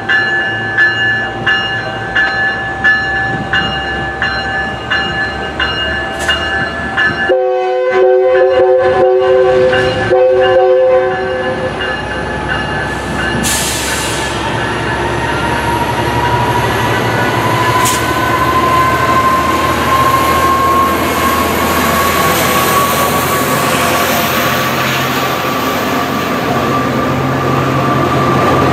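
Metrolink commuter train passing, its bell dinging rapidly, then a horn blast of two steady notes held about four seconds, starting some seven seconds in. After the horn, the bilevel coaches roll by with a steady rumble and a whine that slowly rises in pitch.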